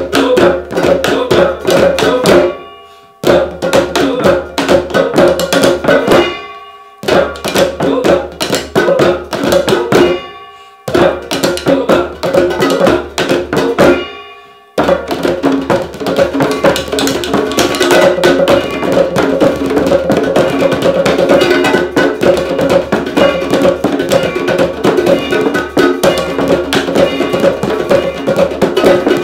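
Found-object hand percussion: mallets striking household objects such as a footstool, a wastebasket and a mixing bowl, several layered parts playing a busy steady groove. It drops out briefly four times in the first fifteen seconds, leaving a ringing tone each time, then plays on without a break.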